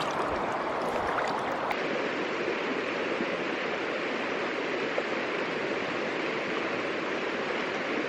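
River water rushing steadily over rapids, an even hiss-like roar. The sound changes abruptly about two seconds in and then holds steady.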